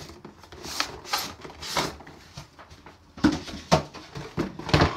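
Handling noise from a phone camera being set down and moved with its lens covered: rustling against the microphone, with several sharp knocks in the second half.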